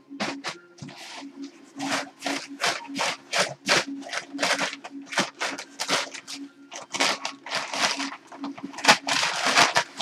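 Crumpled packing paper rustling and crinkling in quick, irregular bursts as it is handled and pulled out of a cardboard box, over a steady low hum.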